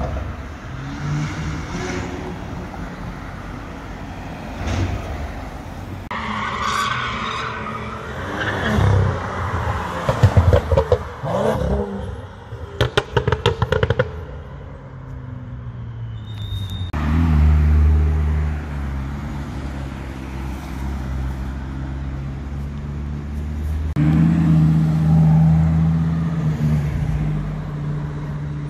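Sports car engines and exhausts revving and accelerating past, cut together from several short clips. About halfway through comes a rapid string of sharp exhaust cracks, and in the later part a deep engine rumble that grows louder near the end as cars pull away.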